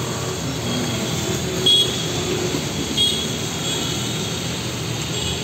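Heavy rain and traffic on a waterlogged road: motorbikes, scooters and cars passing through the downpour. Two brief louder sounds stand out, one under two seconds in and another about three seconds in.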